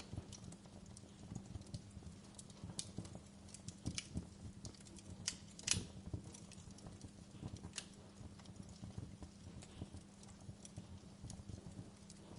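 Wood fire in a fireplace crackling, with irregular small snaps and pops and one louder pop about halfway through.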